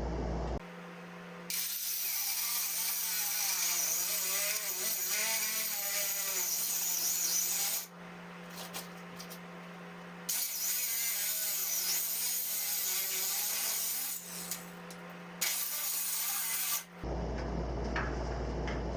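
A handheld power tool working in three long bursts, each a loud, even hiss, with a steady low hum carrying on through the pauses between them.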